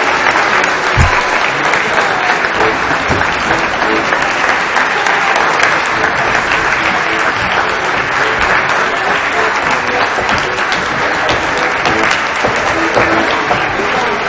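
Audience applause, a dense steady clapping, with accordion music playing beneath it.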